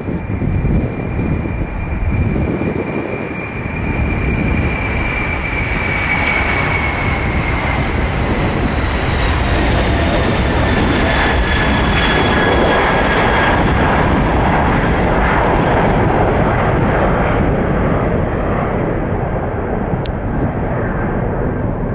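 Boeing 747-400 freighter's four jet engines at takeoff power: a steady roar that swells to its loudest mid-way as the aircraft lifts off and climbs past, with a high whine that slides down in pitch as it goes by.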